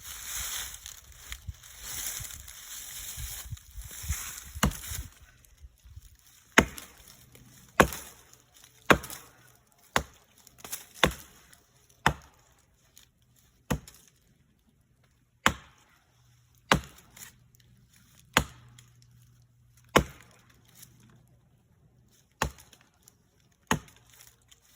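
Axe chopping into wood, with about a dozen separate strikes spaced roughly one to one and a half seconds apart. The chopping follows a few seconds of scraping noise at the start.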